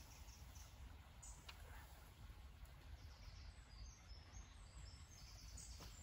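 Near silence: a low background rumble, with a small bird chirping faintly in short high notes from about halfway through, and two faint clicks.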